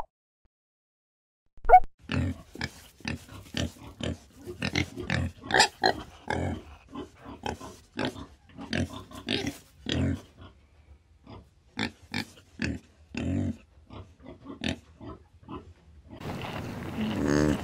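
Pigs grunting, a quick run of short calls with clicks between them. In the last second and a half they give way to a steadier, rougher noise.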